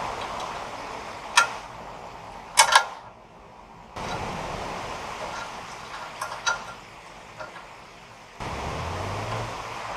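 Small metal clicks and clinks as a throttle cable end and its steel bracket on a tubular handle are handled and fitted: one sharp click about a second and a half in, a quick cluster of clinks near three seconds, then a few lighter ticks, over a steady background hiss.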